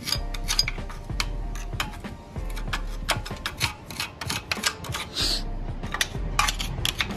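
A rapid, irregular series of sharp clicks and taps over a low steady hum that cuts in and out.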